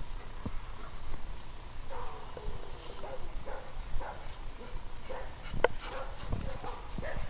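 Several dogs at play, giving scattered short barks and whines, with a falling whine about two seconds in.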